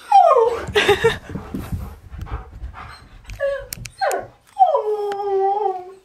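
Husky 'talking' excitedly as another dog approaches: a string of whining, falling woo-calls with a rough grumbling stretch in the first couple of seconds, then a long howl near the end.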